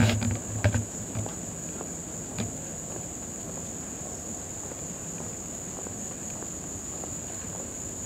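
Insects calling in a steady, high-pitched chorus, with a few low thumps in the first second.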